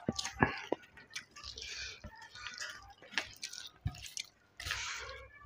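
Eating sounds: wet chewing and sharp mouth-smacking clicks, with squishing of curry-soaked rice being mixed by hand on a steel plate.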